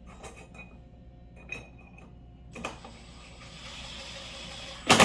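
Aluminum level holder and its brackets being handled and fitted onto a tool box: a few light clicks, a steady hiss-like noise for about two seconds from about halfway, then a loud sharp clack near the end.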